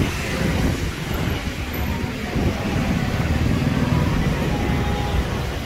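Steady outdoor background rumble, low and even, with faint distant voices.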